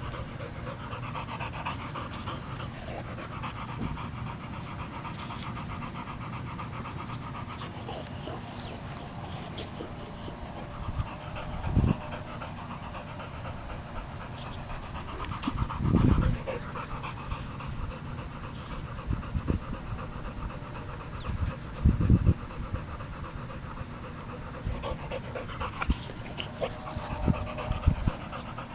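Boxer dog panting steadily, with a few dull low thumps now and then.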